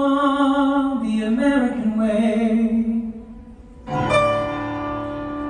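Music: a solo singing voice holds a note and then slides down for about three seconds. Then, just before four seconds in, a sustained chord enters sharply.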